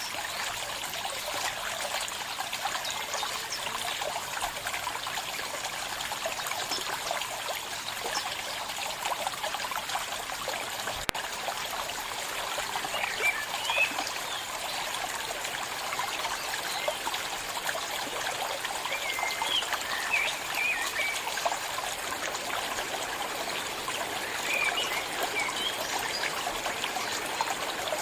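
Stream water trickling and babbling steadily, with a few short high chirps about halfway through and near the end.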